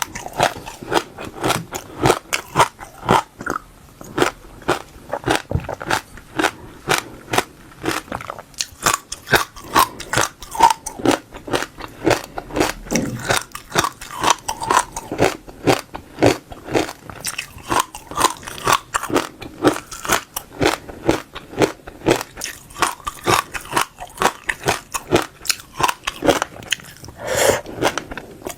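Close-miked crunching of seeds between the teeth: a continuous run of sharp crunches and cracks, several a second, as the seeds are bitten and chewed.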